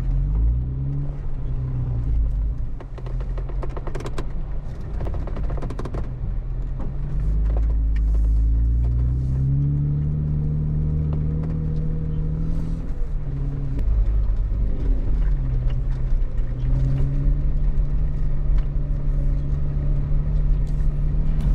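Jeep engine running as it drives along a rough dirt trail, the engine note rising and falling a few times with the throttle. A cluster of knocks and rattles comes about four to six seconds in.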